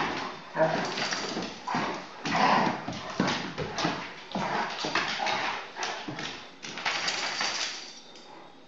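Great Dane and Rhodesian Ridgeback puppies play-fighting: an irregular run of rough dog play noises and scuffling, with claws clattering on a wooden floor. It dies down near the end.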